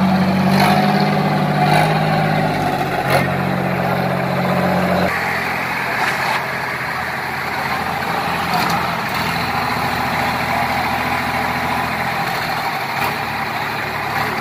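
Sonalika tractors' diesel engines running while chained together in a tug-of-war pull. The engine note changes abruptly about five seconds in, and there are occasional short knocks.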